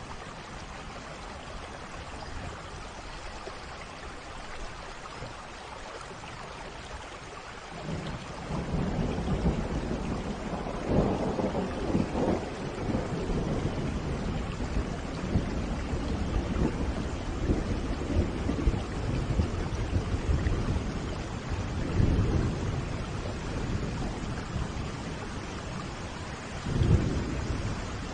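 Rainstorm: steady rain, joined about a third of the way in by low rolling thunder that swells several times, loudest near the end.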